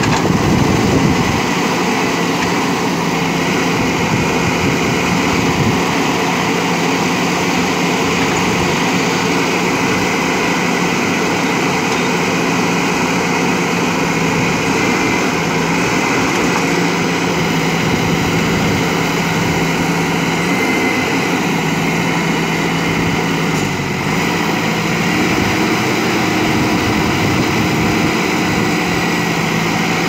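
JCB 3DX backhoe loader's diesel engine running steadily as the backhoe arm digs. Its pitch shifts a little in the last third, and a higher tone joins near the end.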